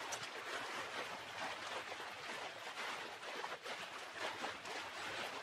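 Small waves washing gently onto a sand-and-shingle beach: a steady soft hiss with faint crackles.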